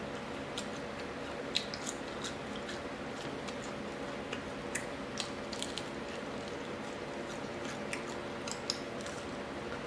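Scattered small crackles and clicks of crispy fried crappie being picked apart by fingers, its small bony skeleton broken up, with some chewing, over a steady low background hum.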